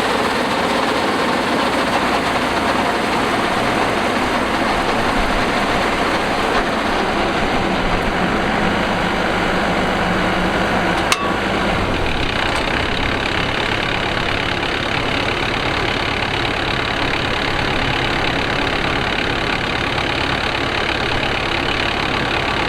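Combine harvester engine running steadily, with a single sharp click about halfway through.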